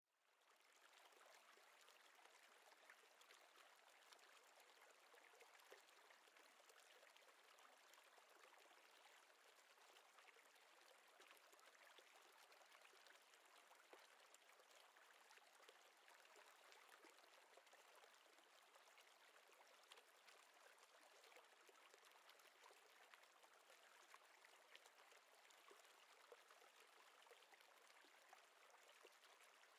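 Near silence: a faint, steady rush of flowing river water, fading in over the first second.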